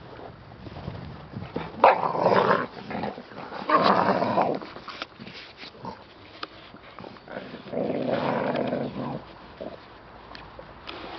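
American Staffordshire Terriers growling as they play-wrestle, in three loud bouts, with quieter scuffling between.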